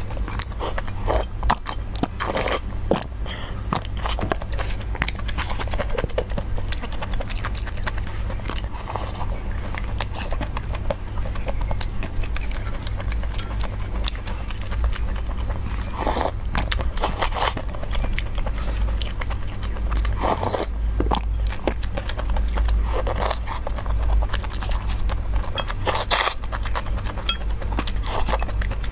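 Close-miked eating of noodle soup: chewing, slurping noodles and many small wet mouth clicks, over a steady low hum.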